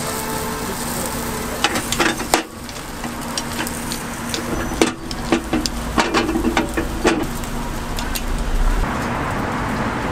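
Bungeoppang baking: batter sizzling in hot metal fish-shaped molds, with sharp metal clicks and clanks as the molds are handled, a few about two seconds in and a busier run between about five and seven seconds.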